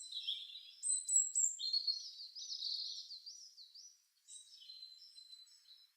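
Small birds chirping in quick repeated arching notes, loudest in the first few seconds and fainter near the end.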